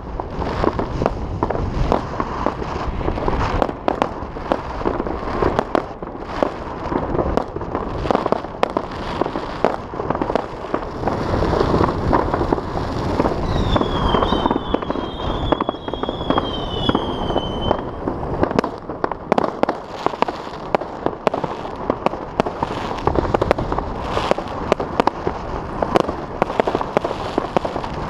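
Fireworks salvos going off all across the city: a continuous barrage of overlapping bangs and crackles, near and far. About 14 seconds in, a high wavering whistle rises and falls several times for about four seconds.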